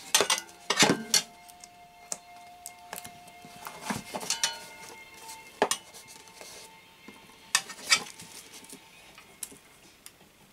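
Thin foil pieces crinkling and rustling as they are handled and pressed onto a papier-mâché form, in irregular bursts of sharp crackles.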